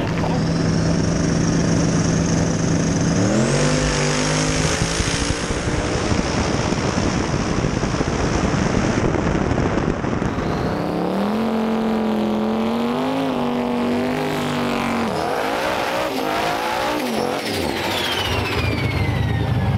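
Drag-race car engines at full throttle. An engine holds a steady note, then climbs in pitch as the car launches and pulls hard down the track with a high whine. A second run climbs and cuts off, a falling whistle follows, and near the end a car's engine runs through a burnout.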